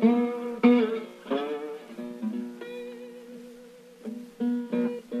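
Music: an acoustic guitar playing an instrumental break in a blues song, a few sharply plucked notes and then notes left ringing, with a few more plucks near the end.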